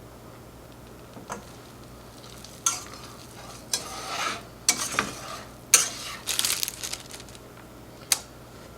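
A utensil stirring cheese sauce in a pan on the stove, with irregular scrapes and clicks against the pan and a light sizzle.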